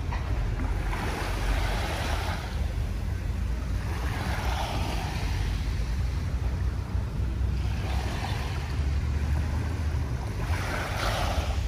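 Small bay waves washing up onto a sandy shore, one swell of surf about every three seconds, with a steady low wind rumble on the microphone.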